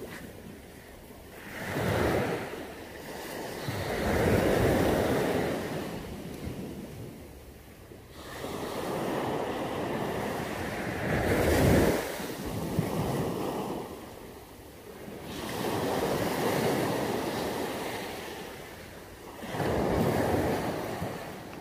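Small sea waves breaking and washing up a beach of black stones and sand, the surf swelling and fading every few seconds, with some wind on the microphone.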